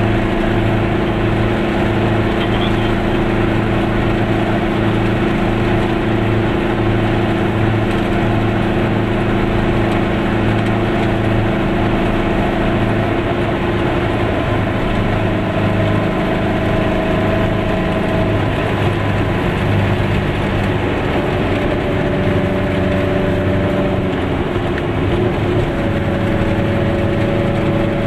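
Goggomobil's small two-stroke twin engine running while the car is under way, heard from inside the cabin together with road noise. The engine note shifts in pitch several times in the second half.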